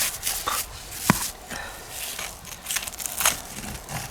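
Short crinkling, tearing rustles as a fire-baked zander is pulled apart by hand, with a sharp click about a second in.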